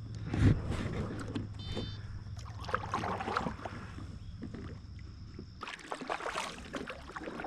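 Fishing kayak being handled and moved on the water: irregular knocks and scrapes against the hull with water swishes. A steady low hum runs underneath and stops about six seconds in.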